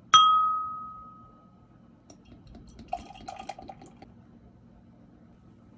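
A stemmed beer glass is tapped once and rings with a clear tone that fades over about a second and a half. About three seconds in, beer is poured from a bottle into the glass for about a second, with a splashing, foaming sound.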